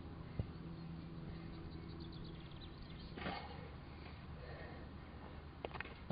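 Quiet open-air background noise with a short rustle about three seconds in, then a few quick footfalls on grass near the end as a player runs up to kick a football.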